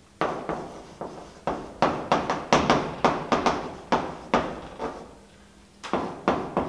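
Chalk writing on a blackboard: a quick run of sharp taps and short scrapes as the letters are stroked on, with a lull of about a second before the tapping starts again near the end.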